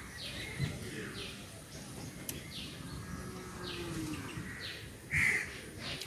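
Birds chirping: short high calls about once a second, with one louder, lower call about five seconds in.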